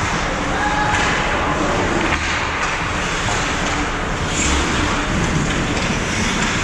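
Steady wash of ice hockey rink noise on a GoPro, with scattered thuds and faint voices in the mix.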